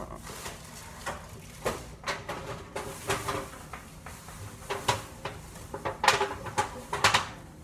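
A string of clattering metal knocks and clinks from an oven and its baking tray being handled, loudest in the last couple of seconds.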